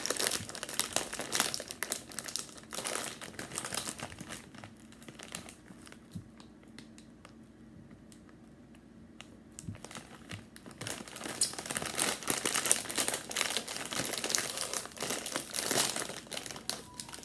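A plastic chip bag crinkling and crackling as it is handled, then pulled open. The crinkling goes quiet for a few seconds in the middle and comes back louder for the last six seconds.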